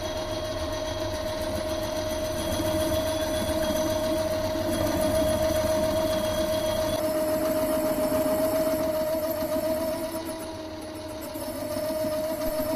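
Mini metal lathe running steadily, its motor and spindle spinning a rusty hexagonal steel part held in the chuck, with a constant hum. The sound eases off briefly near the end and then comes back up.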